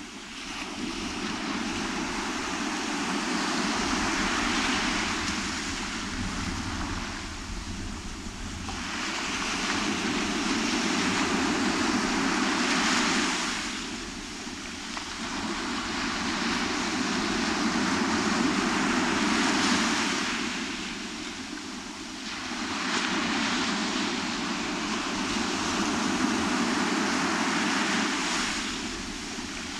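Wind and breaking surf, an even rushing noise that swells and fades in long surges every several seconds.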